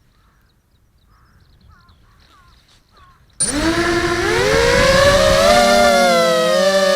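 Faint bird chirps, then about halfway through a QAV250 quadcopter's motors and propellers start abruptly. They spin up into a loud whine that rises in pitch and then holds steady.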